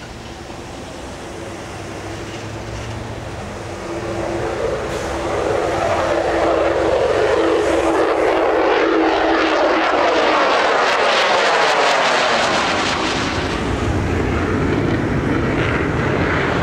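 F-16C fighter jet climbing out after takeoff, its engine noise growing louder over the first six seconds, then a loud crackling jet roar with a steady tone that falls in pitch as it passes.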